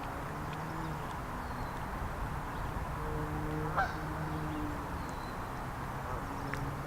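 Geese honking repeatedly over a steady background hiss, with a brief higher bird call with a quick rising sweep about halfway through.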